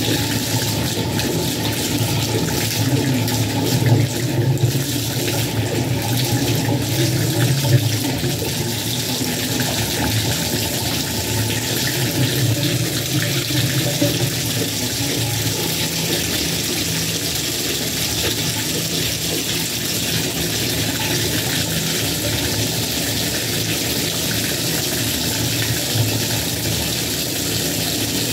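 Bathtub faucet running steadily, a stream of warm water pouring into the tub, a little fuller for the first several seconds and then even.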